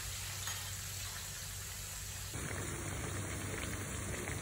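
Food sizzling in hot oil in a frying pan, a steady hiss that changes and grows a little louder about halfway through.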